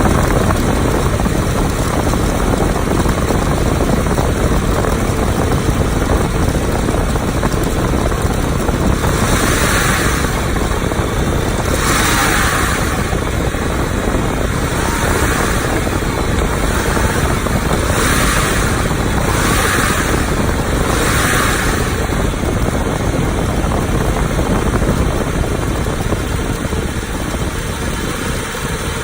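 2011 BMW 535i's N55 turbocharged inline-six running steadily, with the noise of an accessory belt drive whose tensioner has gone bad. Several short bursts of higher, hissy noise come and go in the middle.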